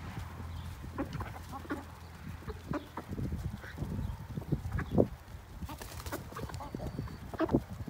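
A flock of chickens clucking while they feed together: short, scattered clucks from many birds at once.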